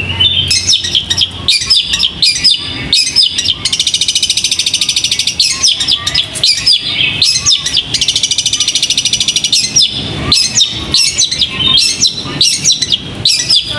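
Caged competition songbird singing: a run of quick, sharp chirps and whistled notes, broken twice by a long, fast buzzing trill of about a second and a half, once a few seconds in and again past the middle.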